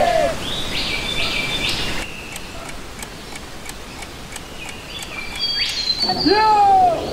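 Birds chirping over an outdoor background, with short high chirps and quick rising calls. A person's loud call rises and falls in pitch near the end.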